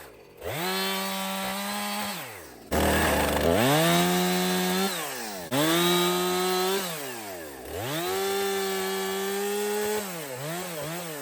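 Husqvarna 455 Rancher two-stroke chainsaw revved to full throttle four times, each time held for a second or two as it cuts through old fence wood, then dropped back toward idle. It ends with a few quick blips of the throttle.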